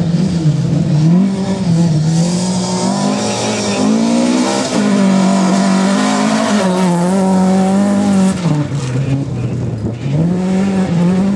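Volvo 240 rally car's engine revving hard on gravel, its pitch climbing and dropping again and again as the driver works the throttle and gears through the corner, with a hiss of loose gravel from the tyres strongest about two to five seconds in.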